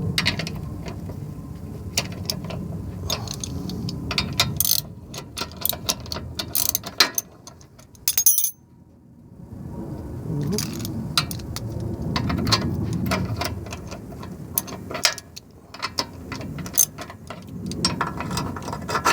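Hand ratchet wrench clicking in runs as it turns the shock absorber's mounting nuts loose, with a brief pause about eight seconds in.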